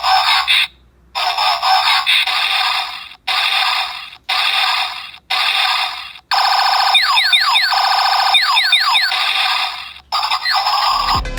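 Electronic sound effects from a toy transforming robot's small built-in speaker: a series of short, harsh bursts with brief gaps, then a longer stretch of repeated quickly falling laser-like zaps. The sound is thin, with no bass.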